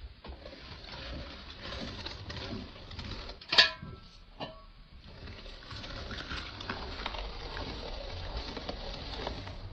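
Food-preparation handling noise: rustling and small clicks and taps, with one sharp ringing clink of kitchenware about three and a half seconds in and a fainter clink a second later.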